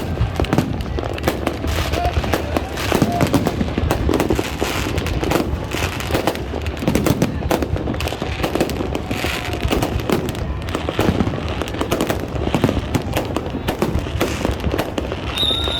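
Dense, continuous fireworks: a steady barrage of overlapping bangs and crackling with no pause, the rapid rattle of firecrackers mixed in.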